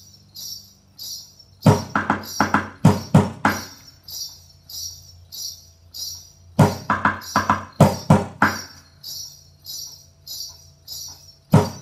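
Yellow plastic bucket played upside down as a drum with a stick: short bursts of rhythmic strikes, one about every five seconds, over a steady jingling pulse of about two beats a second.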